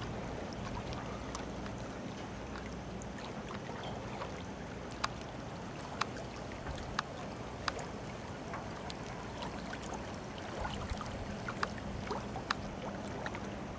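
Distant engine of construction machinery on the river, a steady low drone, with scattered short sharp clicks and knocks.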